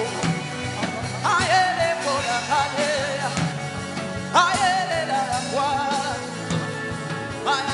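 Worship music with a steady beat, and a voice holding long wavering notes over it in three phrases.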